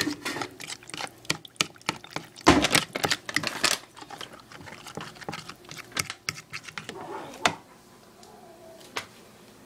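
Fork stirring cornbread batter in a bowl: rapid clicking and scraping of the fork against the bowl. It is busiest in the first four seconds, thins out, and has nearly stopped by the end.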